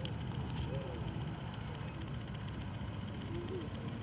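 Grey diving beetle giving faint cow-like "moo" calls: short tones that rise and fall, about three in four seconds, over a steady low hum.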